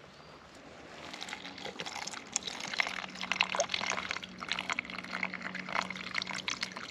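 Water poured from a canteen into its cup, splashing and trickling, starting about a second in, while a dog laps at the cup.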